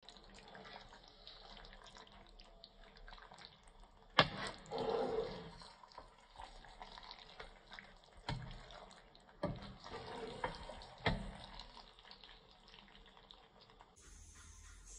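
A spatula stirring thick squid roast in a granite-coated pan, with about five sharp knocks of the spatula against the pan, the loudest about four seconds in.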